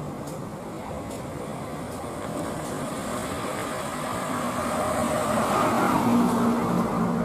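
Jet engines of a twin-engine wide-body airliner on approach, their noise growing steadily louder as it nears, with a low drone and a higher whine swelling over the last few seconds.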